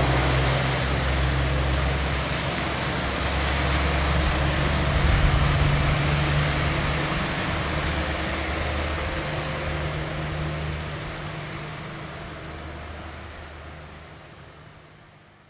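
Road vehicles at a tunnel mouth: a low engine drone with a car passing about five seconds in. The drone then fades, and the whole sound fades out near the end.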